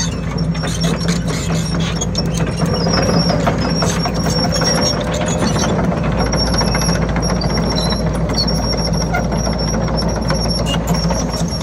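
An excavator's diesel engine running steadily under load, with many irregular knocks and cracks from the MDE Scorpion S1600 hydraulic grab working demolition material.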